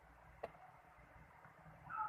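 Near silence with a single short click about half a second in, and a faint high squeak starting just before the end.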